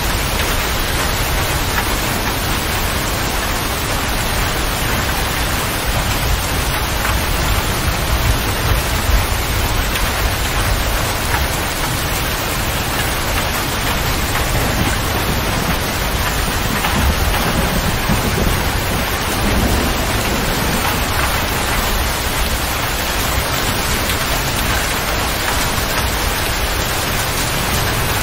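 Heavy rain falling steadily on a motor grader's cab roof and windows, heard from inside the closed cab.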